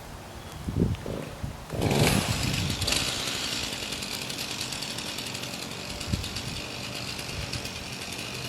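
Gas chainsaw being pull-started: a few low pulls, then the engine catches about two seconds in and runs on steadily.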